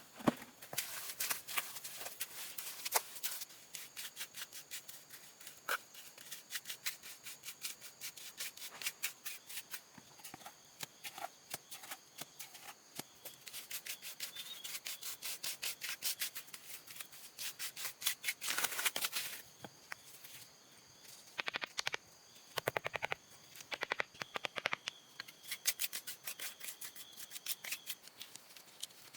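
Rapid, repeated scraping strokes, several a second, in runs broken by short pauses, with a quieter gap about 20 to 22 seconds in.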